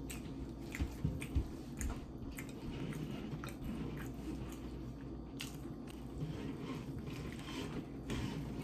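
Close-up chewing and biting of food, with wet smacking and many short crisp clicks and crunches throughout.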